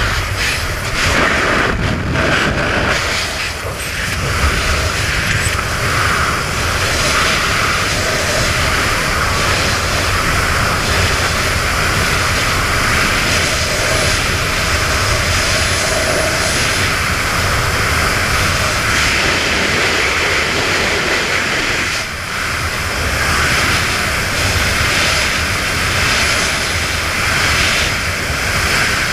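Aircraft engine running steadily with a loud rushing noise and a faint high whine now and then.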